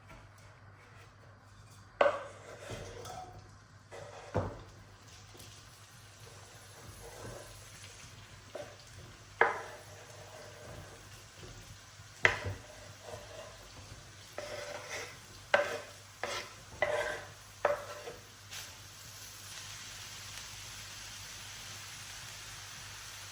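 A kitchen utensil stirring food in a pan, knocking sharply against the pan seven or so times with scraping in between. In the last few seconds a steady hiss of food sizzling takes over.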